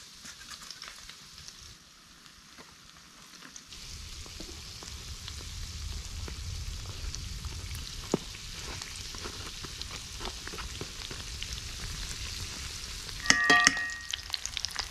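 Biscuits deep-frying in hot oil and eggs with a sausage frying in a cast-iron skillet: a steady sizzle that gets louder about four seconds in. Near the end comes a short metallic clink with a brief ringing tone.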